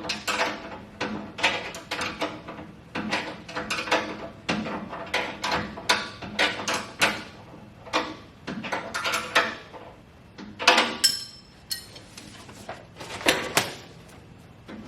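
Irregular clattering of metal parts and packing being handled: a quick run of knocks and clicks, with a brief ringing metallic clank about eleven seconds in.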